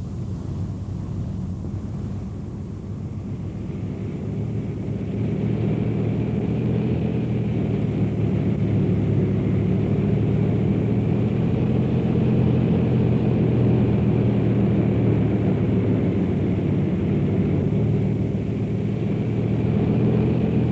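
Steady low engine rumble, growing louder about five seconds in and holding there.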